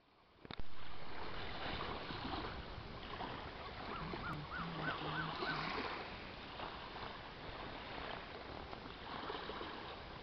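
Sea water washing and lapping at the shore, with wind rumbling on the microphone. There is a sharp knock about half a second in, and a short run of five or six quick repeated rising-and-falling notes around the middle.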